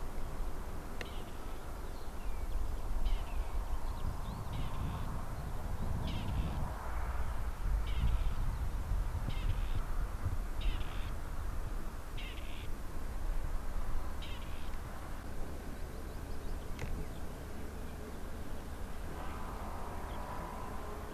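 A bird calling repeatedly in short calls, about one a second, over a steady low rumble. The calls stop and a faint steady hum comes in near the end.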